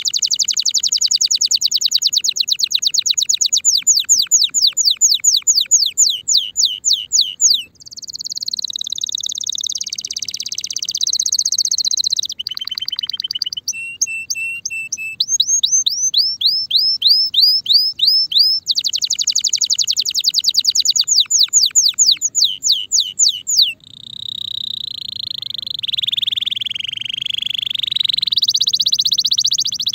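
Spanish Timbrado canary, a male ready to breed, singing a long song of fast rolls and trills with smooth drawn-out tones between them, breaking off briefly a few times.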